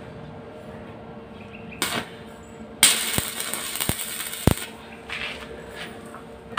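Stick (arc) welding on the steel frame of a sliding gate: the arc strikes with a sudden crackling hiss and sharp pops for about two seconds, starting a little under three seconds in, after a short crackle about two seconds in.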